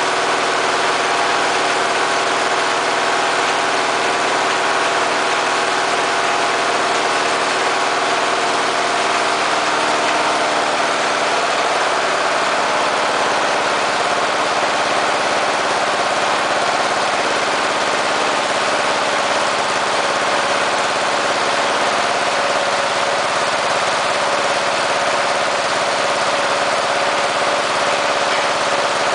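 Briggs & Stratton 12 HP I/C lawn-mower engine running steadily on a rich mixture, with a slight change in its note about eleven seconds in.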